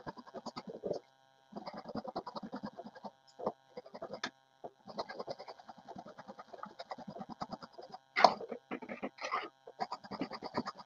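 Metal spatula stirring and scraping in a metal kadhai as gram flour is mixed into the boiling spiced water for pithala: quick, repeated scraping strokes with short pauses, and one sharp knock against the pan about eight seconds in.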